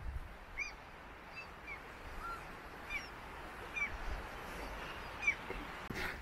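A bird calling outdoors, a series of about eight short, arched chirps at irregular intervals, over a low, steady background rumble.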